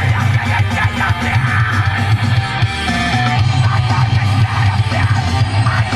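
Loud heavy metal music with distorted electric guitars and a heavy bass, likely heard over the car's stereo.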